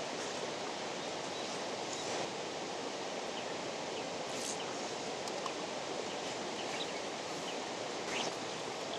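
Steady, even outdoor background hiss with a few faint brief clicks.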